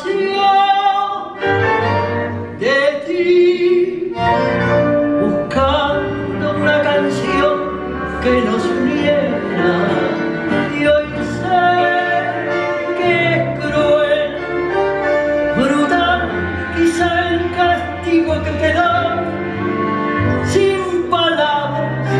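A woman singing a tango live, with a small tango orchestra including piano playing along.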